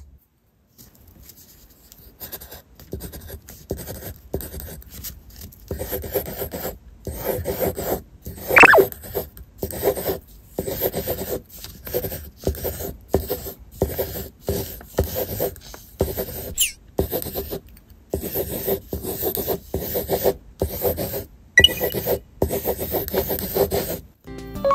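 Sun-Star Metacil metal pencil scratching across paper as it scribbles: a quick run of scratchy strokes, about two a second, with a few short squeaks. The pencil's tip is a graphite-bearing alloy that leaves its mark by friction against the paper.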